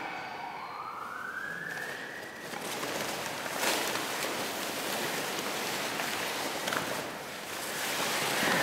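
A siren-like tone that dips in pitch and rises back over the first two seconds, then a loud rushing noise with scattered crackles that swells about three seconds in and carries on.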